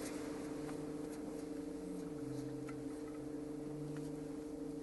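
Automatic car wash machinery humming steadily, heard through the closed windows of a car, with faint scattered ticks. A lower tone wavers in pitch through the middle.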